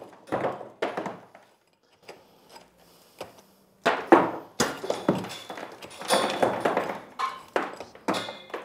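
Irregular knocks and scraping of stone as blocks are worked loose from the top of an old stone wall by hand. There is a lull of about two seconds early on, then the knocking picks up again and keeps going.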